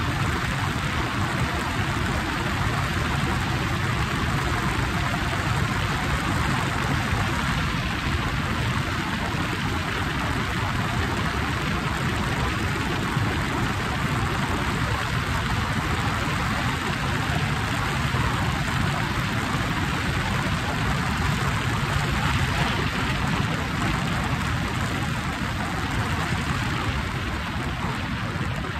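Motorcycle cruising at highway speed: a steady rush of wind and road noise over the low drone of the engine.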